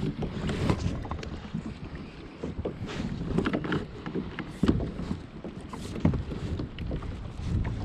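Water lapping and splashing against a polyethylene pedal kayak's hull, with wind buffeting the microphone and scattered small knocks.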